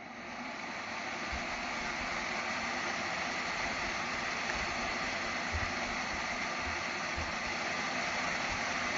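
Bladeless tower fan blowing air: a steady rushing hiss that builds up over about the first second and then holds level, with a few soft low thumps scattered through it.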